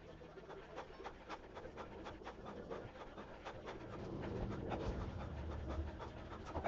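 Workout audio played back about ten times fast: a rapid, fluttering jumble of short clicks over a noisy haze, a little louder in its second half.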